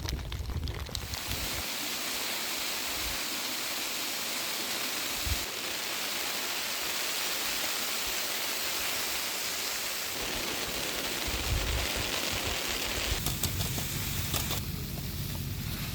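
Steady rain, an even hiss that sets in about a second in. A low hum joins near the end.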